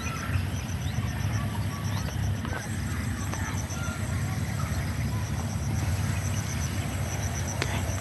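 Outdoor ambience: a steady low rumble with a faint, high chirping in short, evenly spaced runs.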